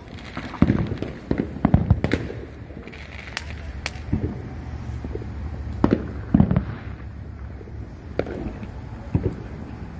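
Fireworks bursting: an irregular run of sharp bangs, each with a short low rumble after it, thickest in the first two seconds and again around six seconds in.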